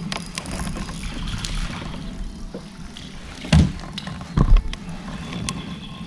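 Small handling sounds aboard a plastic fishing kayak, with faint clicks and rustles from the rod and reel. Past the middle come two dull thumps against the hull, about a second apart, and these are the loudest sounds.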